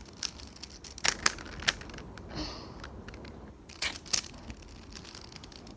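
3x3 Rubik's cube being twisted by hand, its plastic layers giving irregular clicks and clacks as they turn.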